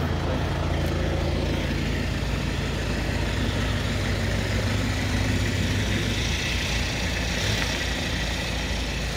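A motor running steadily with a low hum, like an idling engine, over background street noise.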